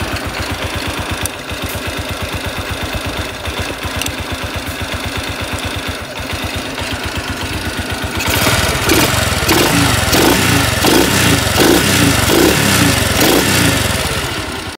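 Honda EX5 Dream's single-cylinder four-stroke engine idling with an even, steady beat; it becomes louder and more pronounced after about eight seconds.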